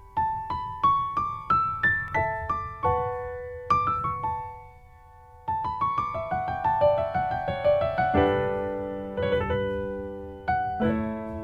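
Background piano music: single notes stepping upward, a short pause about halfway, then a run of overlapping notes and chords.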